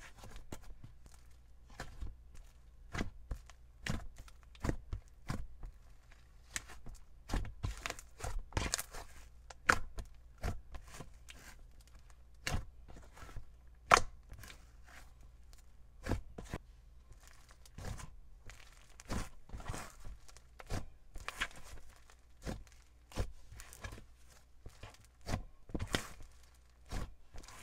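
Thick pink icee slime being poked, pressed and stretched by hand, giving irregular small sticky clicks and pops, a few of them louder.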